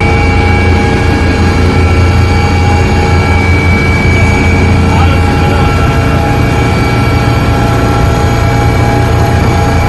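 Helicopter engine and rotor noise: a loud, steady drone with a constant whine over it.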